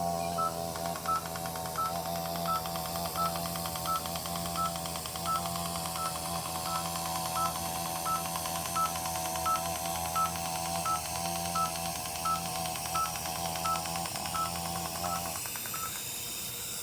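Dental treatment laser firing during NightLase snoring treatment: a rapid run of fine clicking from the laser pulses, with a short beep from the unit about every 0.7 s, which stops about 16 s in. Under it, the patient holds a long steady "aah" that ends about 15 s in.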